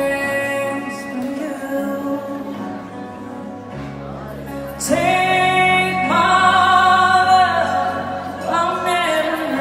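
A woman singing a slow ballad into a microphone, amplified, over backing music. About halfway through she rises into long, loud held notes.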